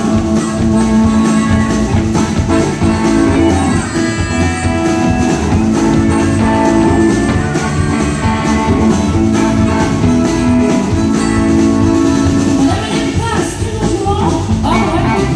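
Live country band playing amplified music: electric guitar, bass, drums and acoustic guitar. A woman's singing comes in near the end.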